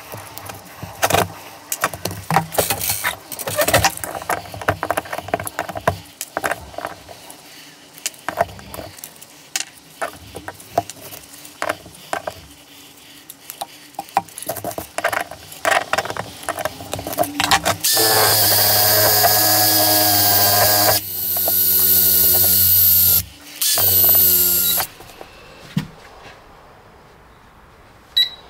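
A power tool runs in three bursts near the end, the loudest sound here, after a long stretch of irregular clicks and knocks.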